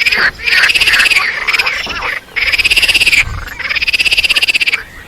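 Squirrel chattering alarm call: bouts of rapid rattling pulses, about a second each, repeated three times with short pauses between.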